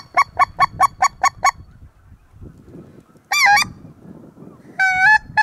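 Goose call blown hard at a passing flock of geese: a quick run of about eight short honks, then single longer honks about three seconds in and again near the end.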